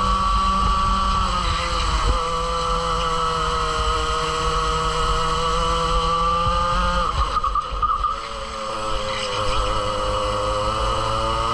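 Two-stroke racing kart engine at high revs, heard from on board. Its pitch holds fairly steady, drops as the kart slows for a corner about seven seconds in, then rises again as it accelerates out.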